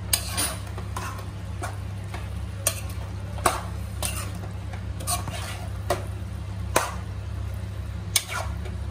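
Metal spoon stirring and turning roti pieces through a vegetable masala in a nonstick pan, with sharp, irregular clinks of the spoon against the pan about once a second. A steady low hum runs underneath.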